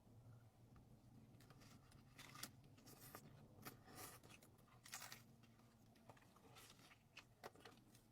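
Faint close-up eating sounds: scattered crackles and wet clicks of someone chewing food, over a low steady hum.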